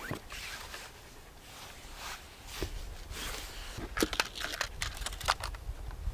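Scattered rustling with light clicks and crunches, most of them clustered about four to five seconds in.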